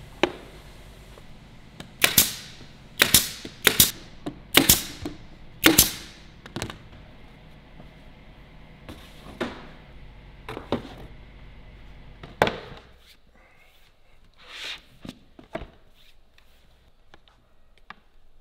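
Pneumatic nail gun firing into a drawer's hardboard bottom panel: a string of sharp shots at uneven intervals, about a dozen in all. Near the end come a few softer knocks.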